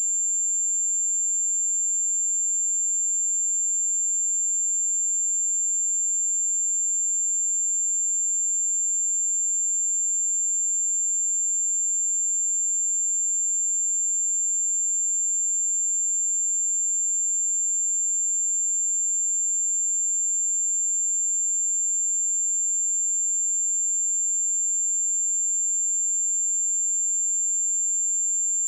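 A pure 7295 Hz sine-wave test tone: one steady, high-pitched whistle held at a constant level without a break.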